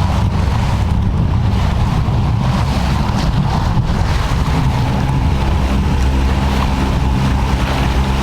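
A small watercraft's engine running steadily under way on open water, with wind buffeting the microphone. About halfway through, the engine note settles into a steadier hum.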